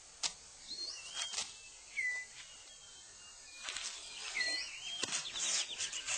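Rainforest ambience: birds give short whistled calls that slide in pitch, mixed with sharp clicks and rustles. The sounds grow busier past the middle.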